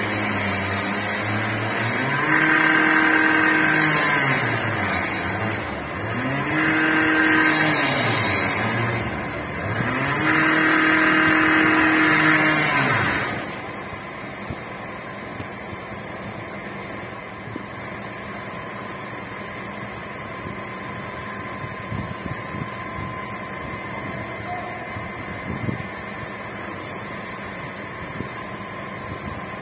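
An engine revving up, holding high and dropping back three times in about ten seconds, with a hiss that rises with each rev. After about thirteen seconds it settles to a steady, quieter background rumble.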